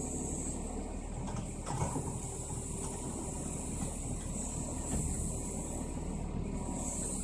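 Scania 6x6 timber truck's diesel engine running steadily to drive its hydraulic loading crane while the crane lifts a Hüttner trailer off the truck bed and lowers it. A steady hydraulic hiss runs under the engine, with a metallic knock about two seconds in.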